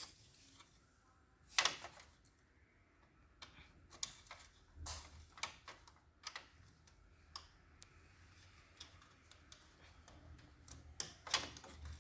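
Irregular light clicks and taps of plastic wiring connectors and cables being handled and plugged into a copier's drive assembly, about a dozen in all with a few louder ones.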